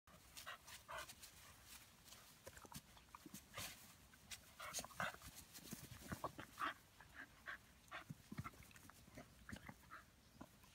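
Irish terrier puppies playing with an adult dog, giving many short, faint dog sounds scattered throughout.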